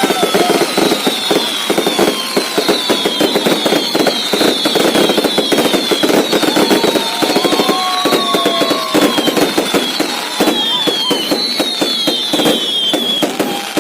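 Fireworks going off in a dense, continuous run of rapid crackling bangs, with a string of short, high falling whistles about one a second.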